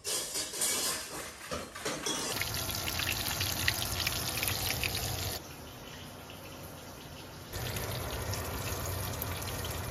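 Breaded whole fish frying in a pan of hot oil, sizzling and crackling steadily from about two seconds in, quieter for a couple of seconds in the middle.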